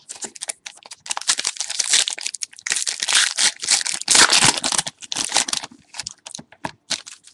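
Wrapper of a football trading card pack being torn open and crinkled in the hands: a dense crackling for a few seconds, then a few small rustles and clicks.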